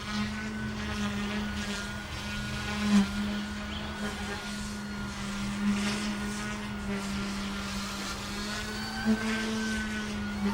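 OMPHobby M1 micro RC helicopter flying: its electric motors and spinning rotor blades give a steady whirring hum with a higher whine above it, swelling briefly a few times.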